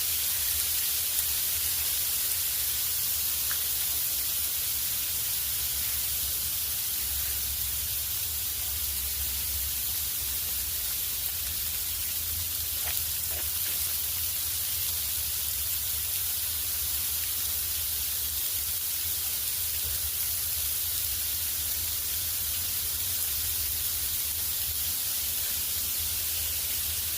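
Steady, even hiss with a low hum underneath and a few faint ticks, with no distinct event standing out.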